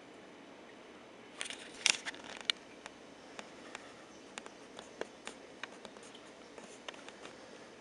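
A quick cluster of sharp clicks about a second and a half in, then scattered single ticks every third to half second, over a steady faint hiss.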